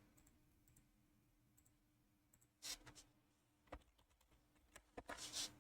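A few faint clicks from computer input over near silence: a couple a little under three seconds in, a single one near four seconds, then a quick run of them near the end.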